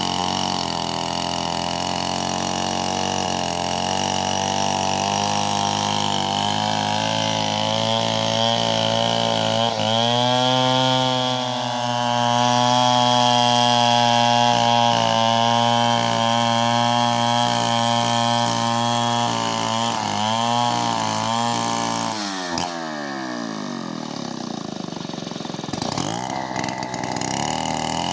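Stihl chainsaw running while it rips a coconut log lengthwise. The engine revs up about ten seconds in and holds a high, steady pitch under the cut. About twenty-two seconds in it drops back toward idle, then revs again near the end.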